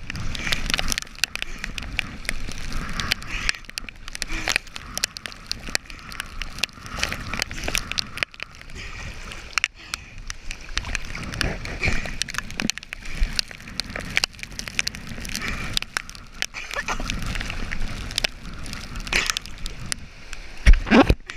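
Choppy lake water sloshing and splashing against a waterproof action camera's housing at the waterline, an irregular run of wet slaps and knocks, with one loud knock near the end.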